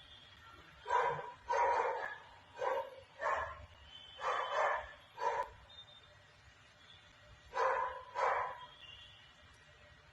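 Dog barking: about nine sharp barks in three bursts, with pauses between.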